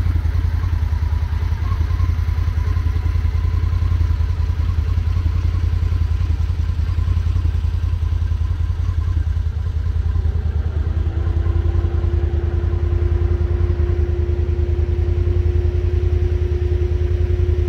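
Can-Am Defender Limited side-by-side driving over a rocky dirt trail, heard from inside its cab: the engine's steady low drone, with a steady higher-pitched tone joining about two-thirds of the way through.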